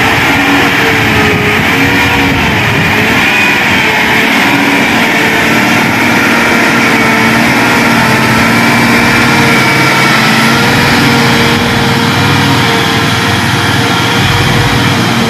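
Hino 500 FM 280 JD dump truck's six-cylinder diesel engine running steadily under load as the truck climbs a hill with about 35 tons of coal aboard, its pitch wavering slightly up and down.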